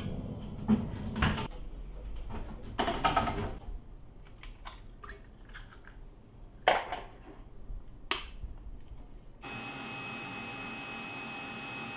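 Kitchen handling noises: a few sharp knocks and clatters in the first seconds as the oven is closed, then taps of eggs being cracked against a bowl. About nine and a half seconds in, an electric kitchen appliance motor starts a steady hum with a thin whine.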